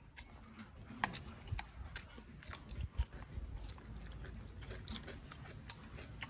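Two men eating stir-fried eel with rice and raw vegetables close to the microphone: irregular chewing and biting, with sharp crunchy clicks and soft low thuds.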